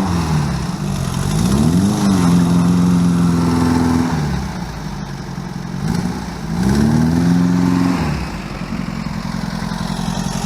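Vehicle engine revved up and held twice, each time dropping back, then settling to a steady idle about eight seconds in.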